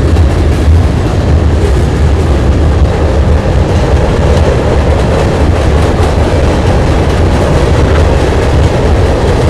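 Freight cars of a mixed manifest train, tank cars and covered hoppers, rolling across a steel trestle bridge: a loud, steady rumble of wheels on rail and steel structure.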